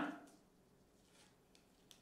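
Very quiet handling of a trading card and a clear plastic sleeve: a soft rustle and a few light ticks, the sharpest just before the end.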